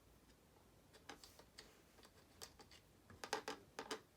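Faint scattered clicks and taps of small metal screws handled and tried against a switch plate, bunched together near the end.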